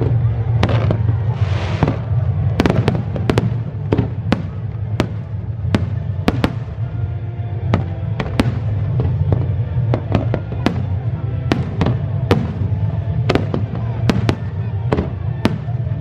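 Aerial firework shells bursting in rapid, irregular succession, sharp bangs coming roughly two a second over a steady low rumble.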